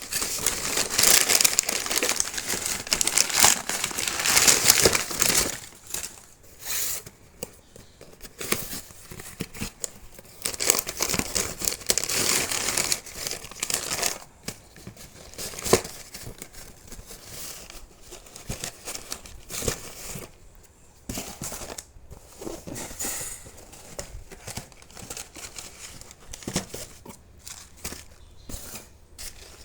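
Packaging being handled and torn open by hand: continuous crinkling and tearing for the first several seconds, then shorter bursts of rustling with a few sharp clicks.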